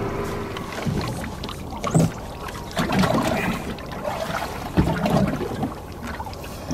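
Motorboat trolling slowly at light throttle: a low steady motor hum fades about a second in, then irregular thumps and splashes of water against the hull.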